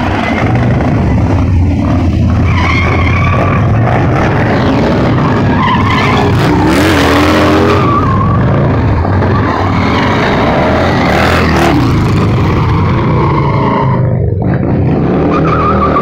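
Harley-Davidson motorcycle engine revving hard and steadily loud while the rear tyre spins and squeals on asphalt in a burnout.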